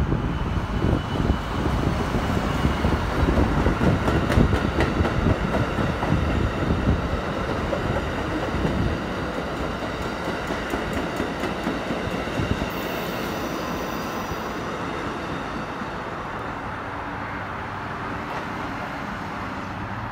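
Amtrak passenger train passing close by: a heavy rumble, with the wheels clacking over rail joints, that eases off after about nine seconds and fades as the train draws away.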